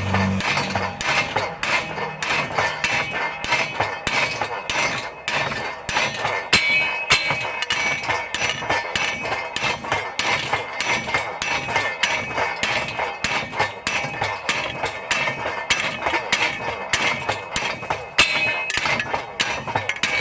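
Homemade cam-driven Da Vinci-style power hammer, driven by a wheelchair gear motor, pounding a piece of 3/4-inch steel electrical conduit flat: a steady run of metal-on-metal blows, about three a second, each with a ringing clink.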